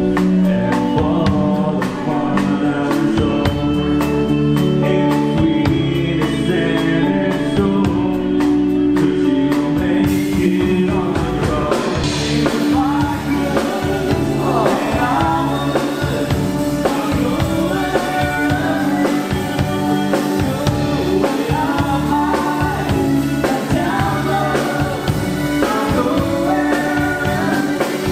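Live band music: a man and a woman singing into microphones over drums, keyboard and electric guitar.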